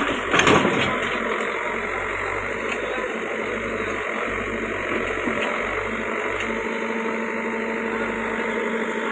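Tractor diesel engine running steadily at idle, with a couple of short knocks right at the start and a low steady hum joining about six and a half seconds in.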